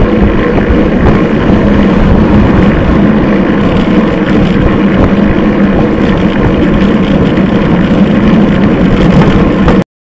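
Steady, loud wind rumble on a bicycle-mounted camera's microphone while riding, which cuts off abruptly near the end.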